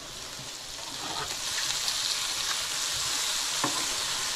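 Chunks of longnose gar searing in butter in a nonstick frying pan, sizzling steadily and growing louder about a second in as the pieces are turned over. A single light click sounds near the end.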